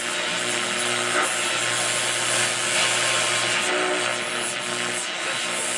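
Hallicrafters SX-28A tube shortwave receiver's loudspeaker giving out steady static hiss with a low steady hum while it is tuned between stations.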